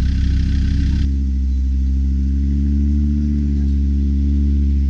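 A four-wheel-drive vehicle's engine running steadily with a low drone, its pitch rising slightly for a moment about three seconds in.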